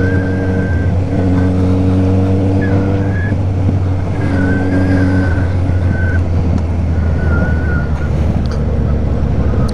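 Motorcycle engine and exhaust running at a steady speed while riding, with wind rush over the rider's microphone. The engine's tones hold level, fading back briefly a few times, and a higher wavering whine runs over the top.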